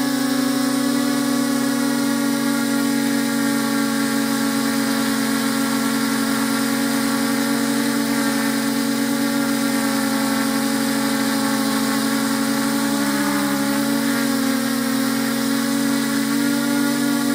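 Multirotor drone's electric motors and propellers whining steadily, heard close up from the camera on the drone itself. The pitch dips briefly and comes back up about two-thirds of the way in, as the motors ease off.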